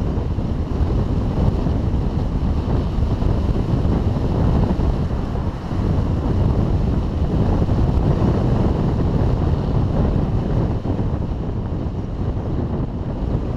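Steady rush of wind buffeting a helmet-mounted GoPro Hero3's microphone as a bicycle coasts downhill at speed.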